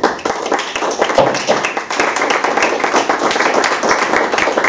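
A small audience applauding: a dense patter of hand claps that starts abruptly and keeps going.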